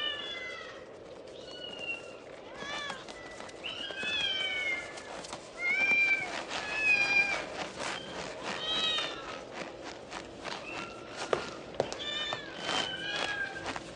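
Cats yowling and meowing over and over, many short calls that slide up and down in pitch, mixed with scattered knocks and clatter.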